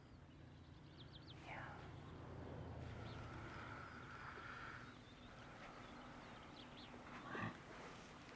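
Faint outdoor ambience with a few short bird chirps.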